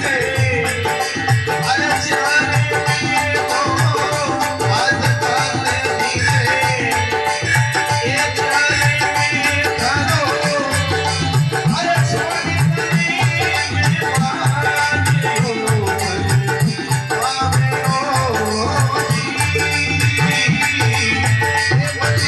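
Rajasthani devotional folk music: a steady hand-drum rhythm with a rattling shaker, under a wavering melody line.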